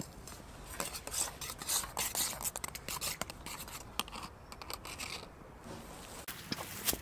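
A metal spoon stirring in a metal camping mug, rapid clinks and scrapes against the mug's sides, with a short pause about five seconds in before a few more clinks.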